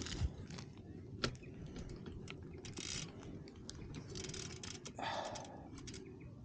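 Light, irregular clicks and rattles from a mountain bike's chain and drivetrain, as a dropped chain is worked back onto the chainring.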